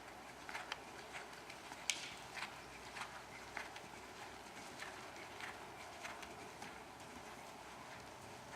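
Horse's hooves striking the ground in a faint, irregular run of clicks and knocks, closest together in the first few seconds and thinning out after.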